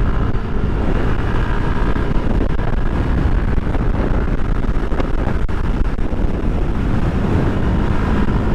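Motorcycle riding along at a steady pace, its engine running evenly under heavy wind noise on the microphone.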